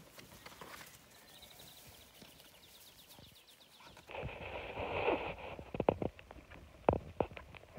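Border collie puppies' paws scrabbling and knocking on a round plastic base, starting about four seconds in after quiet rustling in the grass, with a few sharp knocks near the end.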